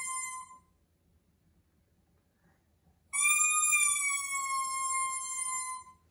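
A baby's toy trumpet blown in long, steady notes. One note ends about half a second in; a second, about three seconds long, starts about three seconds in and sags slightly in pitch toward its end.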